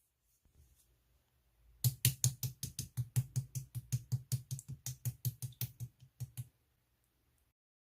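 Slime being pressed and squeezed by hand, giving a fast, even run of crisp clicks, about six a second, that starts about two seconds in and stops shortly before the end.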